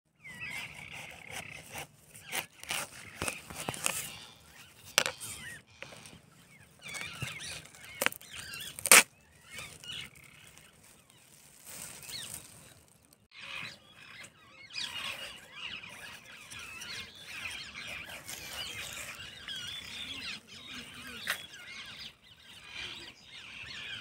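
A handful of sharp knocks and cracks in the first nine seconds, the loudest about nine seconds in, as a whole watermelon is handled and broken open into halves. Birds call throughout, busiest in the second half.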